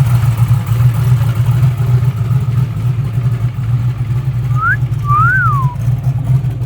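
Chevrolet Nova drag car's engine running with a steady low note. The owner says it is not running great on pump gas with a tune that isn't dialed in. Near the end, a short two-part whistle sounds: one rising note, then one that rises and falls.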